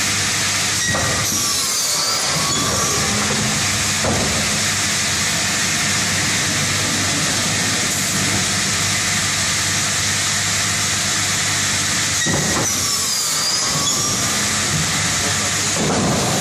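BMH BOS-S CNC cross-cut wood saw running with a steady, loud hissing machine noise. Twice, about eleven seconds apart, a high whine dips in pitch and comes back up.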